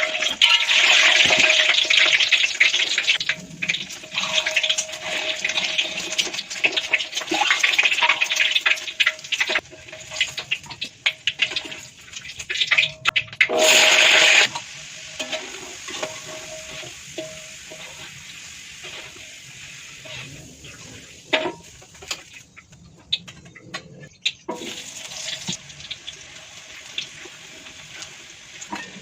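Water running from a kitchen tap into a sink. It is loud for the first ten seconds, stops, comes back briefly about halfway through, and then gives way to quieter clatter and knocks.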